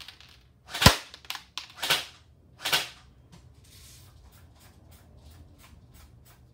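Electric airsoft M4A1 carbine firing single shots on semi-automatic: three loud sharp shots about a second apart, with a softer click between the first two. A run of faint, quick clicks follows in the last few seconds.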